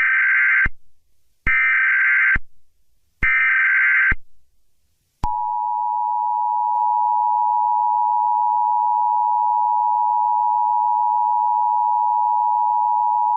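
Emergency Alert System tones: three short screeching bursts of SAME header data, about 1.7 seconds apart, then from about five seconds in the steady two-tone EAS attention signal (853 and 960 Hz) held for about eight seconds, announcing an alert message.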